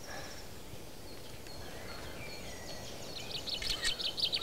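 Outdoor background noise with a few faint high bird chirps. About three seconds in, a bird starts a rapid chattering call: a quick run of high chirps, roughly ten a second, louder than the rest.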